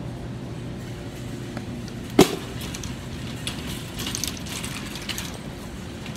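A sharp metal clank about two seconds in, followed by light rattling and clicking of a wire shopping cart being handled, over a steady low hum.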